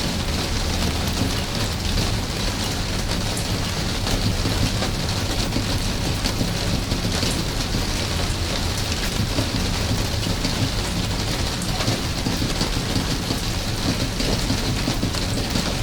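Steady rain, with many close drops heard as small, separate ticks over the continuous hiss.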